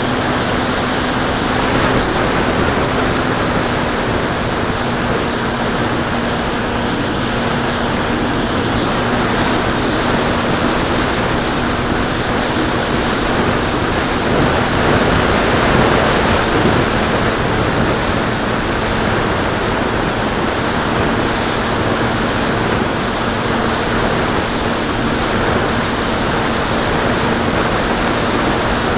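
Electric motor and propeller of a Bixler 2 foam RC plane running steadily in cruise, heard from an onboard camera with wind rushing over its microphone. A steady low hum sits under the wind noise, which swells slightly about halfway through.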